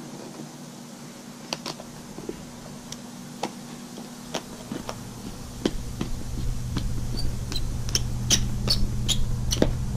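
Screwdriver driving a screw into a car sun visor's metal hinge bracket: scattered sharp metal clicks and ticks that come more often in the second half. A steady low hum runs underneath, and a low rumble builds from about halfway.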